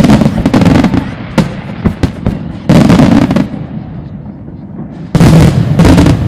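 Aerial firework shells bursting overhead: three loud volleys of bangs and crackling, at the start, near the middle and near the end, with single sharp cracks in between.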